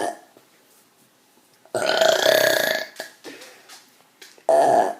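A person burping deliberately: one long, pitched burp of about a second, then a short one near the end.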